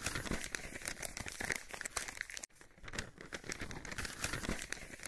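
Paper crinkling and rustling, a scroll-unrolling sound effect, in two long crackly stretches with a brief break about two and a half seconds in.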